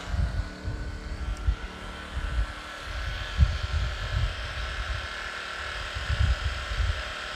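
Firman W2000i inverter generator running steadily at its higher normal-mode speed with eco mode switched off, an even engine hum over irregular low rumbling.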